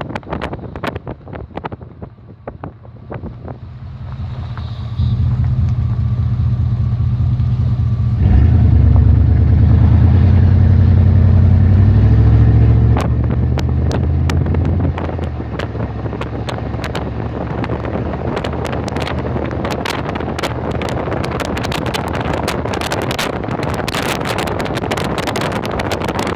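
Vehicle engine pulling under acceleration, stepping up in loudness about five seconds in and again about eight seconds in, then easing off around thirteen to fifteen seconds in. After that a steady rush of tyre and road noise runs on, with sharp ticks scattered through it.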